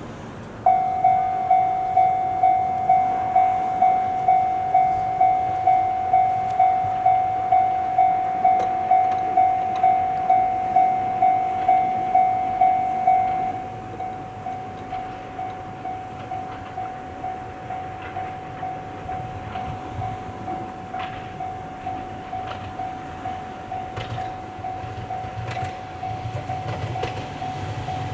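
Electronic railway level-crossing warning bell ringing steadily at about two strikes a second, starting just under a second in; about halfway through it drops to a lower volume and keeps ringing. Near the end the rumble and wheel clicks of an approaching Ohmi Railway 800-series electric train grow beneath it.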